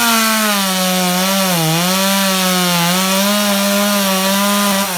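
Chainsaw held at high revs cutting through wood, its pitch sagging briefly under load about a second and a half in.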